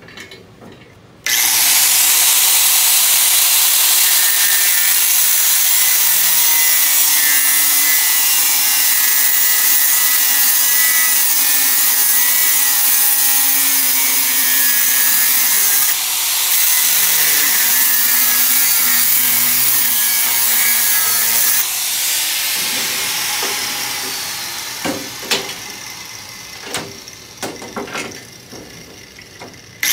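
Angle grinder with a cutoff wheel starting up about a second in and cutting through the welds of a steel exhaust bracket, a loud, steady, high-pitched cutting noise with a brief dip partway through. It is switched off about 22 seconds in and spins down, followed by a few sharp knocks.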